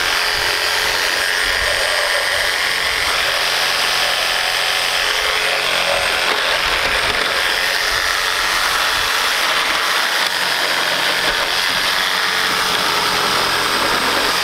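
Corded reciprocating saw (Sawzall) with a construction blade running steadily, cutting through the nails and wood at a nailed joint in a stud wall's framing.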